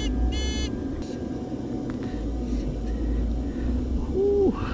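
Wind buffeting the microphone, a steady rumble, with two short bird calls right at the start. A man says a brief 'ooh' near the end.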